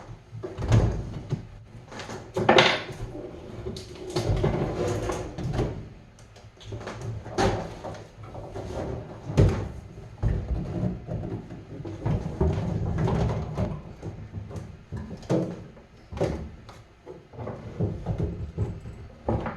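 Irregular knocks, clunks and handling noise as an over-the-range microwave is worked into place under the kitchen cabinets.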